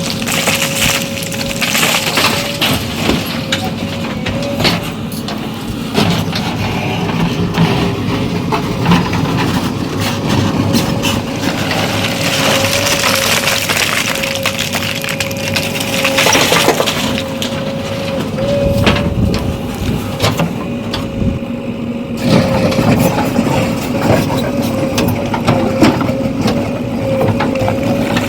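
JCB 3DX backhoe loader at work: its engine runs steadily with a constant whine, under repeated knocks, scraping and crunching as the bucket digs and tips soil.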